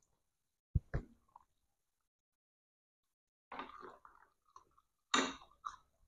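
Close-up eating sounds: chewing and mouth smacking on fried street snacks, in two short clusters in the second half. Two short thumps come about a second in.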